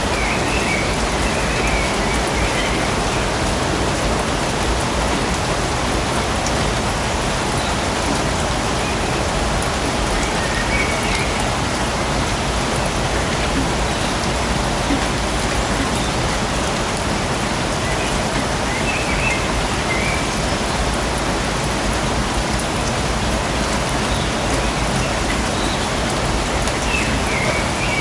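Steady rain falling on a suburban forest, an even hiss of drops with no let-up. A few short high chirps come and go above the rain, near the start, around the middle and near the end.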